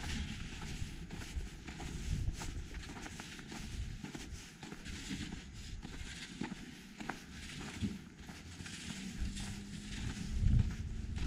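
Footsteps crunching on packed snow as someone walks along a snowy street, with a low steady hum joining about nine seconds in.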